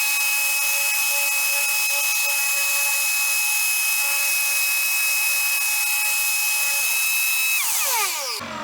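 Ridgid 6-inch sander with 60-grit paper running steadily on fairing compound, with a 5 hp Shop-Vac drawing the dust off through its hose; a steady motor whine over a hiss. Near the end the machines are switched off and wind down, the whine falling in pitch and fading.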